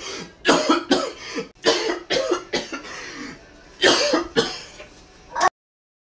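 A man coughing hard in repeated fits, harsh coughs in clusters of two or three, acted out as a heavy 'corona cough'. The coughing cuts off abruptly about five and a half seconds in.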